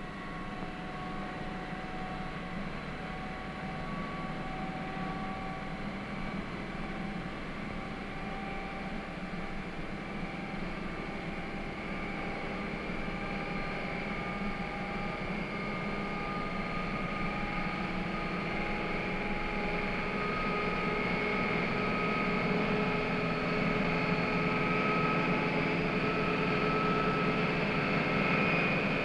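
Laboratory super-speed tire test wheel spinning an ordinary car tire against its drum, a steady mechanical whine that slowly rises in pitch and grows louder as the machine speeds up.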